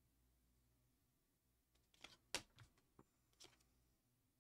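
Near silence: room tone with a few faint clicks and taps about two to three and a half seconds in.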